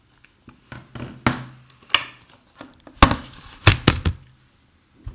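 Handling noise: a string of irregular knocks, taps and rubbing, the loudest thumps about three to four seconds in.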